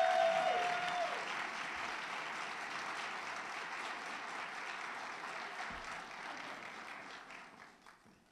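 Audience applauding, with one held, high cheer over the clapping for about the first second. The clapping then dies away near the end.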